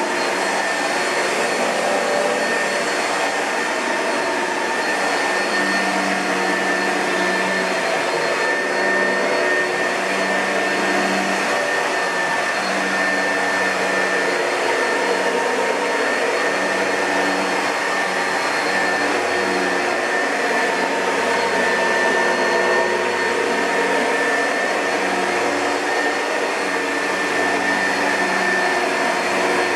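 2005 Oreck XL2 upright vacuum cleaner running with a steady airy rush and a constant high whine. A low hum under it comes and goes about once a second.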